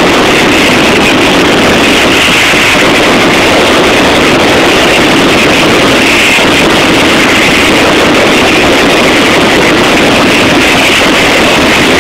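Mascletà firecracker barrage: firecrackers exploding so fast that the bangs merge into one steady, unbroken noise, very loud and overloading the phone's microphone.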